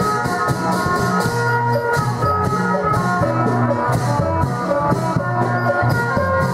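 Mor lam music: a steady drum beat under sustained chords and a repeating bass line.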